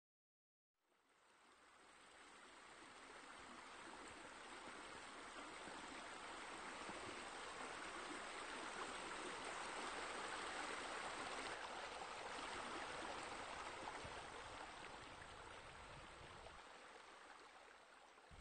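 Steady rush of running water, fading in about a second in, loudest around the middle and easing off slightly near the end.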